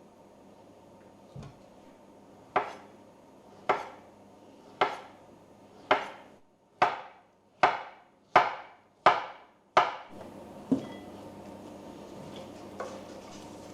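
A series of about nine sharp knocks, each with a short ringing decay, coming faster toward the end. One more single knock follows over a faint steady background.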